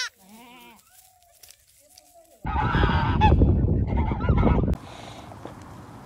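A goat kid gives a short, wavering bleat. About two and a half seconds in comes a much louder, rough animal call lasting about two seconds, which cuts off abruptly and leaves only a faint steady background hiss.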